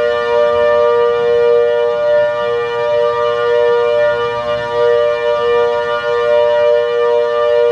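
Siren alarm tone held at a steady pitch: two loud notes sounding together with many overtones, wavering slightly in level but not rising or falling.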